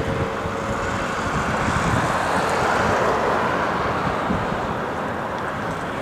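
Heavy mining machinery running, the engines of an excavator and a haul truck, with wind rushing over the microphone. The rushing swells about two to three seconds in, then eases.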